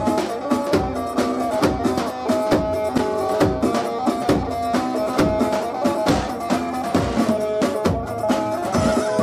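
Halay dance music from a wedding band: a steady, driving drum beat under a sustained, held melody.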